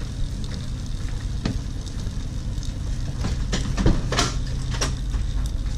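Hot water running from a train carriage's water-dispenser tap into an instant noodle cup, a steady pouring hiss over the low, even rumble of the moving train. A few sharp clicks sound about three to four and a half seconds in.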